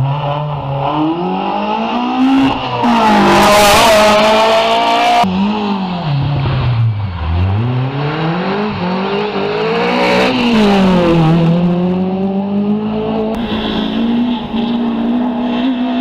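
Rally car engines revving hard, the pitch climbing through the gears, then falling sharply as the driver lifts off and climbing again under acceleration. A loud rush of noise as a car passes close comes about three to five seconds in. The sound cuts abruptly to another car about five seconds in.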